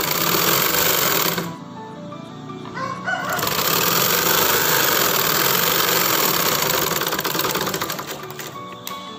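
Domestic sewing machine stitching a hem in two runs: one for the first second and a half, and one from about three seconds in until about eight seconds, ending in a fast ticking as it slows. A chicken calls briefly in the pause between the runs.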